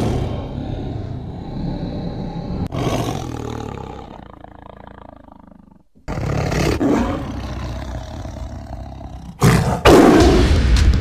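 Tiger roaring again and again, each roar swelling and then fading. New roars come about three and six seconds in, and a louder one comes near the end.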